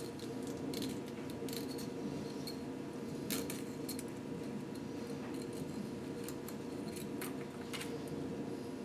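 Scattered light metallic clicks and clinks of hand tools and engine parts being handled, over a steady background hum.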